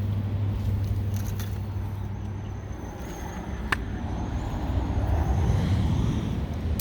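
Strong wind buffeting the microphone, a low rumble that eases and then swells again near the end, with a single sharp click about halfway through.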